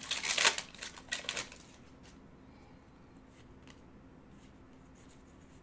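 Trading cards and foil pack wrapper being handled: quick rustling and flicking for about a second and a half.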